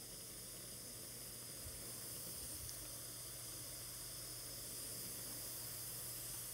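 Faint steady hiss with a low steady hum underneath, unchanging throughout.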